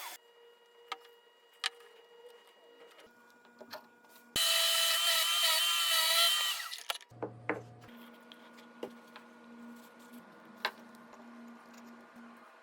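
A small power drill runs for about two seconds near the middle, its whine wavering slightly. Scattered light clicks and taps of wood and hardware being handled come before and after it.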